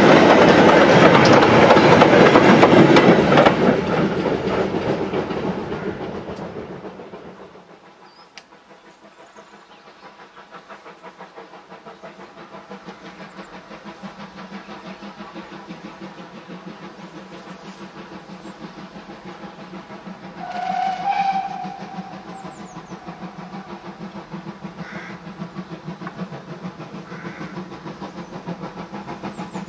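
Goods wagons rumbling and clattering past close by, then fading away over the first several seconds. A steam locomotive's exhaust then pulses evenly as it approaches, slowly growing louder, with a brief whistle a little over two-thirds of the way through.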